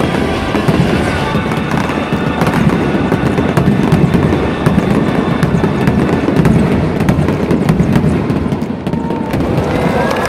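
Fireworks display: a continuous rumble of overlapping bursts with many sharp crackles, with music playing along.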